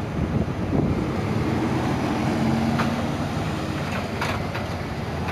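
Motor traffic passing on a busy road: vehicle engines and tyres running steadily, with a few short clicks about three and four seconds in.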